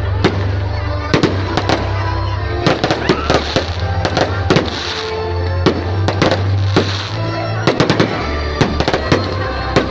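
Fireworks going off in rapid, repeated bangs and crackles, over loud music with a heavy bass.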